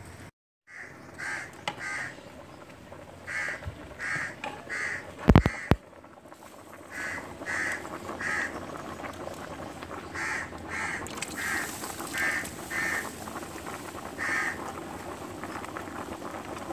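Short bird calls, repeated in runs of about two a second. Two loud knocks come about five seconds in.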